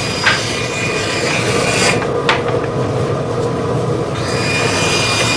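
Steady rasping and rubbing of a woodworking tool on ash wood as a hurl is shaped, with two brief sharper scrapes, about a third of a second in and about two seconds in.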